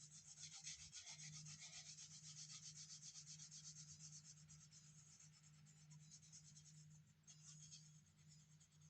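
Faint, rapid back-and-forth scratching of colouring strokes on paper, about four strokes a second, easing off past the middle and picking up again near the end.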